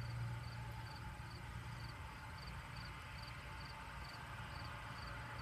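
Cricket chirping steadily, short pulsed chirps at a bit over two a second, faint.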